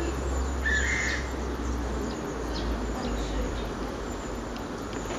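Outdoor pond ambience with distant birds calling, among them Chinese bamboo partridges; one short call stands out about a second in. A low rumble runs through the first three seconds.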